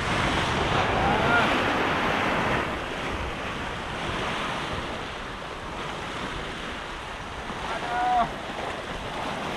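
Sea surf washing and breaking over rocks, with wind buffeting the microphone; the surf is heaviest in the first couple of seconds. Brief high voice-like cries sound about a second in and again near the end.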